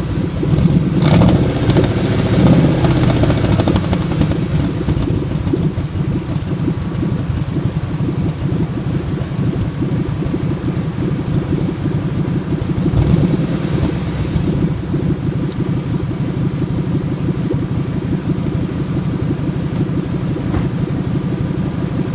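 1997 Ford F-150's 4.6L Romeo V8 idling unevenly, a little louder for the first few seconds and then steady. This is the rough idle the owner is asking about, with its cause unknown.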